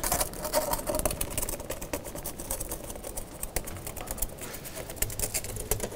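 Fire crackling in a traditional charcoal pizza oven: a dense, irregular run of small pops and snaps.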